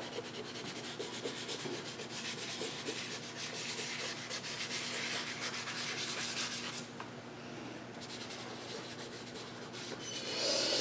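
Stick of compressed charcoal scratching and rubbing on drawing paper in quick repeated shading strokes. It eases off briefly about seven seconds in, then comes back with a louder stroke near the end.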